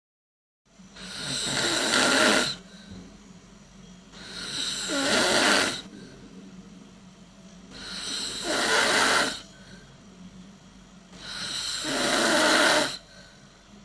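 A person snoring: four loud snores about three and a half seconds apart, each building up over a second or so and then cutting off. A steady low hum runs underneath.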